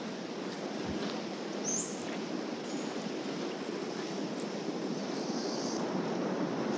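Steady rushing coastal ambience of sea surf and wind, with a few faint high-pitched chirps.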